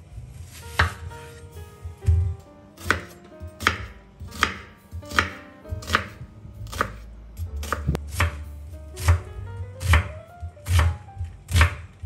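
Chef's knife cutting through an onion and knocking on a wooden cutting board, in steady strokes about every three-quarters of a second, over faint background music.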